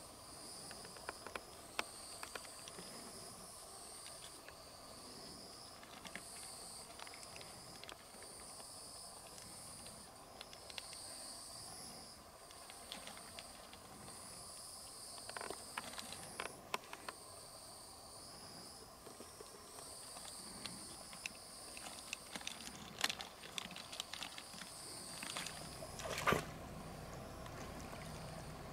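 Insects trilling high-pitched in repeated bursts of a second or two, with scattered small clicks and rustles and a louder rustle near the end.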